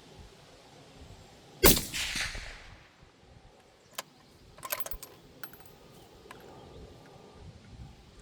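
A single rifle shot through a Silencer Co Omega 300 suppressor fitted with a Recoil X muzzle brake, on a custom rifle chambered in 25 GT: one sharp report with a ringing tail about a second long. It is followed by a few quieter metallic clicks and clinks.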